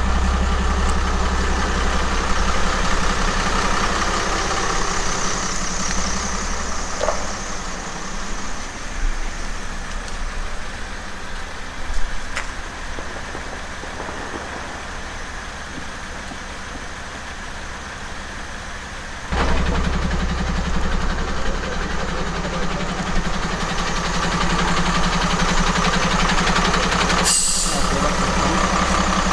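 Diesel engine of a fire engine idling close by, a steady low rumble. It drops back for a stretch in the middle and comes back loud suddenly about nineteen seconds in. A single sharp crack sounds about twelve seconds in.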